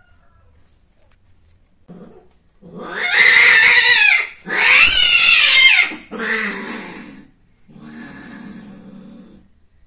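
Long-haired cats mating: two loud, long yowls with wavering pitch about three and five seconds in, trailing off into lower, quieter growling moans.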